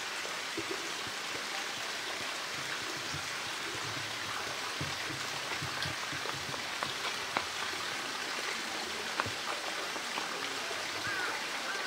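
Steady rush of running water, with a few short sharp ticks in the second half.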